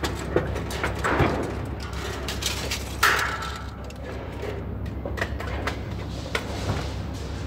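Light-gauge steel studs and track clanking and scraping as they are handled, with one loud ringing metallic clang about three seconds in, over a steady low hum.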